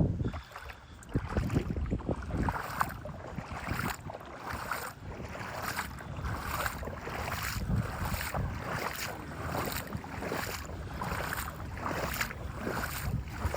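Footsteps wading through shallow floodwater, about two sloshing steps a second.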